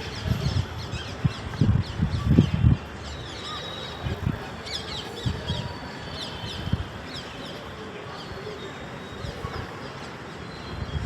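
Birds chirping in the background, a busy run of quick falling chirps. Several low muffled thumps come in the first three seconds.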